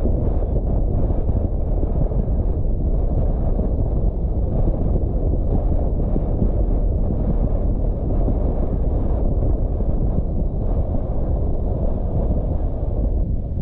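Steady low rumble of a car driving along a road: tyre, engine and wind noise, even throughout.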